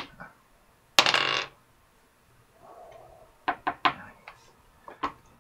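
Dice clattering on a tabletop: a short loud rattle about a second in, then a quick run of sharp clicks a few seconds later.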